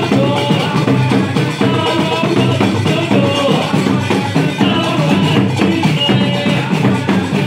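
Dakka Marrakchia troupe performing: dense, steady hand-drum rhythm with clattering percussion, and voices chanting over it.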